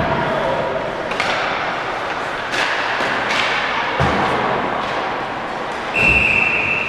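Ice hockey play heard in a rink: sharp clacks and thuds of puck and sticks against the boards over a steady rink hubbub, the heaviest thuds about four and six seconds in. Right after the last thud a referee's whistle starts, one long steady blast.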